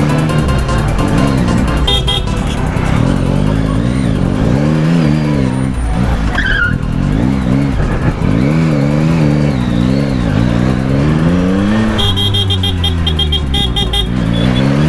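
Motorcycle engine revving up and down over and over while riding, its pitch climbing and dropping every second or so. A brief high falling squeal sounds about six seconds in.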